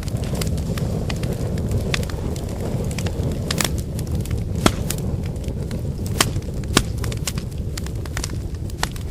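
Wood fire burning: a steady low rumble of flames with irregular sharp crackles and pops from the burning firewood.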